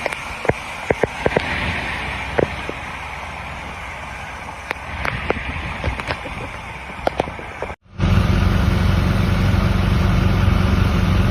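A steady hiss with many scattered sharp clicks, then an abrupt cut about eight seconds in to a louder, steady low drone of a motor vehicle's engine running.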